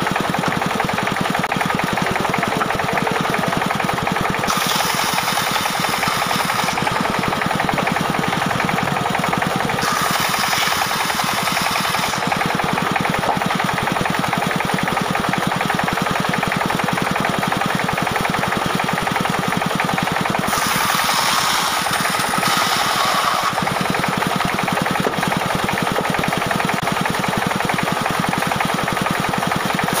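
Diesel-engine-driven band sawmill running steadily with a fast, even engine beat. Several times the blade cuts into a log and adds a hiss over the engine.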